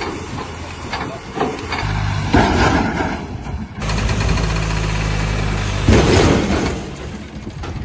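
JCB 3DX backhoe loader's diesel engine running under load, its note rising about two seconds in and again near four seconds, with two loud, noisy stretches of working noise near the middle and about six seconds in.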